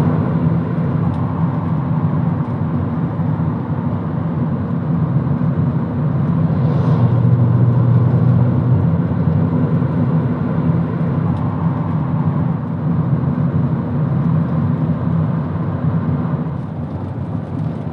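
A moving car, heard from inside: a steady low engine drone with tyre and road noise. It swells a little around the middle and eases slightly near the end.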